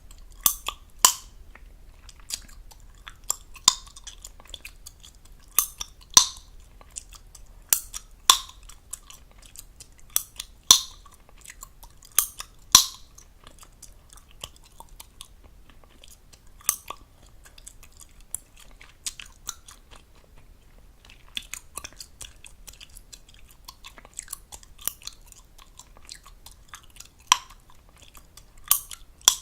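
Close-miked gum chewing: wet smacking with sharp gum pops every second or two, the pops thinning out in the middle before picking up again near the end.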